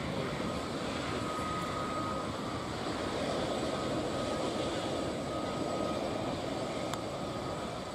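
Steady turbine noise with a thin high whine from a Boeing CH-47F Chinook helicopter standing on the ground with its rotors stopped.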